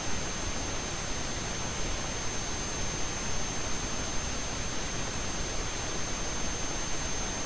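Steady hiss from the recording's microphone and electronics, with a constant high-pitched tone running under it.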